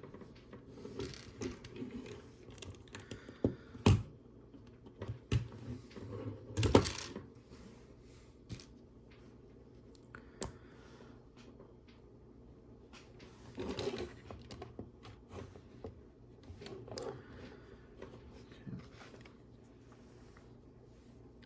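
Plastic Lego bricks clicking and clattering as pieces are picked up, sorted and pressed together, with irregular small clicks and a louder clatter near 4 seconds and again about 7 seconds in.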